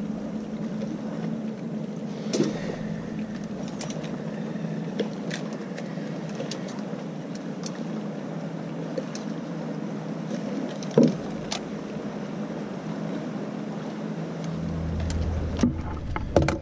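A small motor runs with a steady hum, while sharp clicks and knocks of gear being handled come through, one louder knock about eleven seconds in.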